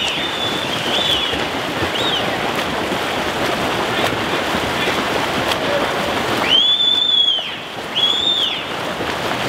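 Steady rushing and splashing of water from several swimmers churning down their lanes. Two brief high whistled tones come near the end.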